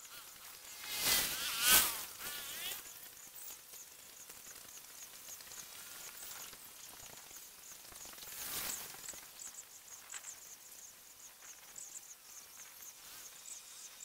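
Outdoor ambience of a steady series of short, high-pitched insect chirps, about three a second. A loud rushing swell of noise rises and fades about a second in, and a softer one around eight and a half seconds.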